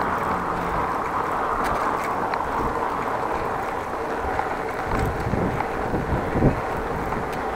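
Steady wind noise on an action camera's microphone while cycling, with heavier low gusts between about five and six and a half seconds in.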